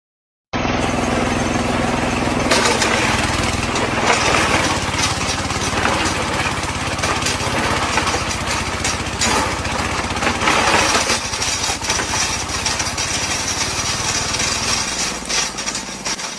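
Motorized machine running steadily with a rapid rattle, starting abruptly about half a second in.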